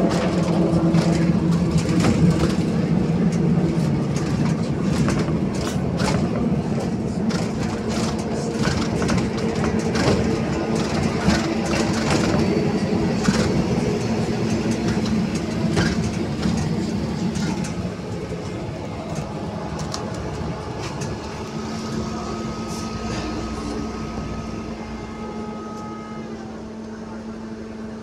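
Cabin sound of a BKM 321 trolleybus in motion: body panels and fittings rattle and knock, over a steady low hum from the electric drive. A little past the halfway point it grows quieter, and a thin steady whine comes in near the end.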